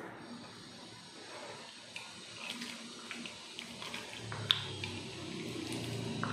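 Steel ladle stirring thick sambar in a pot: liquid sloshing and splashing as it is scooped up and poured back, with scattered clinks of the ladle against the pot, the sharpest about four and a half seconds in.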